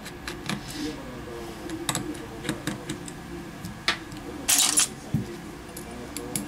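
Small metal tools clicking and tapping against a smartphone's frame and screws during disassembly, with one louder, short scrape about four and a half seconds in.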